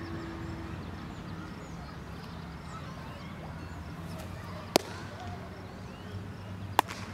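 Two sharp leather pops about two seconds apart: a baseball fastball smacking into the catcher's mitt, then the return throw landing in the pitcher's glove. Faint birdsong and a low steady hum lie underneath.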